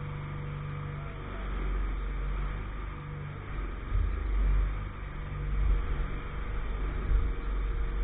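An engine on the pile-driving rig running, first as a steady hum, then as a low rumble that swells and eases several times.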